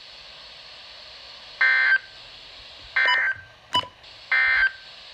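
Emergency Alert System end-of-message code: three short, harsh bursts of warbling digital data tones, about a second and a half apart, marking the end of the alert.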